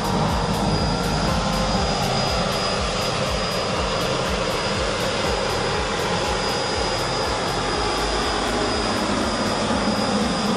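Jet Cat PHT 3 model turboshaft turbine of a 1:4 scale Hughes 500D RC helicopter running at flight power while it hovers, with a steady high whine over the rush of the rotor.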